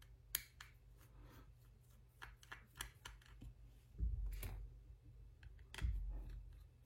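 Faint light clicks and taps from handling an opened smartphone and its small parts, with two dull bumps about four and six seconds in.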